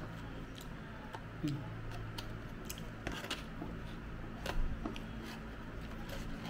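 Scattered light clicks and taps of a metal fork against a clear plastic cake container as cake is cut and scooped, over a steady low hum.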